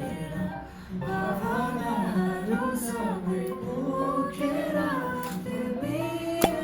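Background song: a voice singing over plucked guitar. A single sharp click comes near the end.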